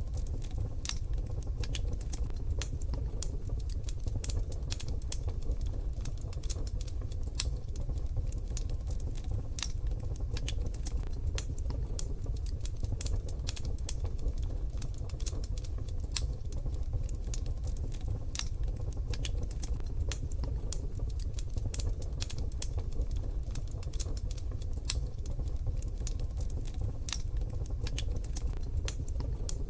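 Wood fire crackling in a wood-burning stove: dense, irregular sharp pops and snaps over a steady low rumble.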